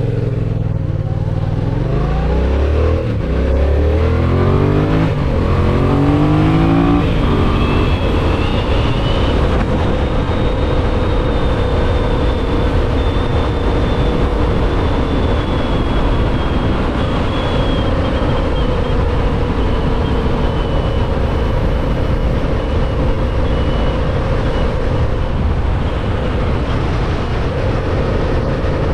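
Yamaha MT-07's parallel-twin engine pulling away and accelerating hard through several gears, its pitch climbing and dropping back with each upshift over the first seven seconds or so. It then settles into a steady cruise.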